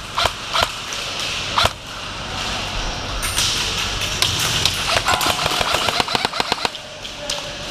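Airsoft guns firing: a few single sharp snaps in the first two seconds, then rapid full-auto bursts of quick, evenly spaced snaps from about three seconds in, thickest near the end.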